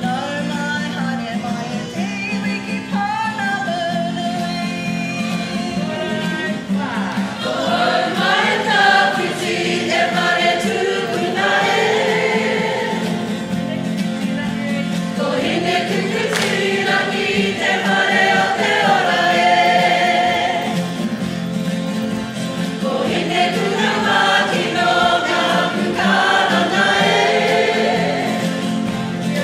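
Kapa haka group of men and women singing together in Māori, a waiata performed with poi, the voices swelling louder in places.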